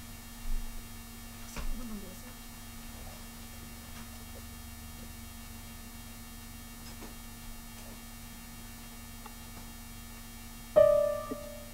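Steady electrical hum over an open video-call line, with two faint knocks early on. About a second before the end, a short, loud pitched note starts and fades within half a second.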